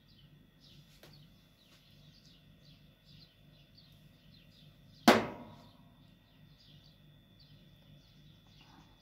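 Faint chirping of small birds throughout, over a faint steady high tone. About five seconds in, one sharp knock with a brief ringing tail.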